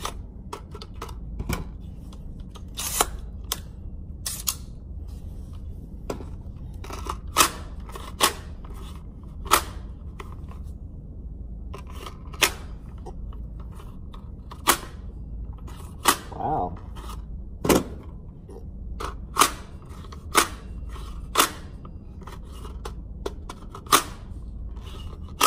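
Gunshots in an indoor shooting range: sharp single reports at irregular intervals, about twenty in all, roughly one a second, over a steady low rumble.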